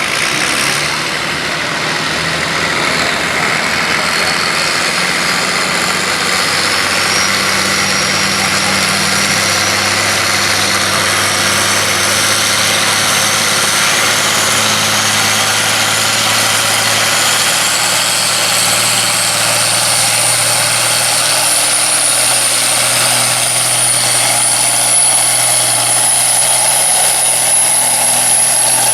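Farm-class pulling tractor's diesel engine running hard and steady under load through a pull. A high whine climbs slowly in pitch over the run.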